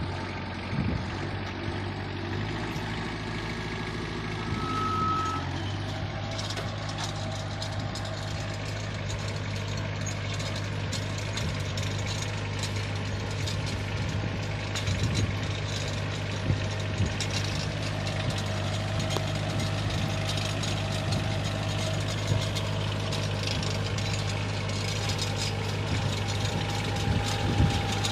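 Mini tractor's diesel engine running steadily at idle with a light clatter, growing a little louder about six seconds in. A short high beep sounds once about five seconds in.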